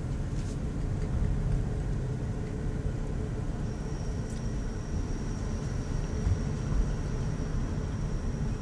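Car driving with a window open: steady low rumble of road and wind noise heard inside the cabin. A faint high steady whine comes in about halfway through.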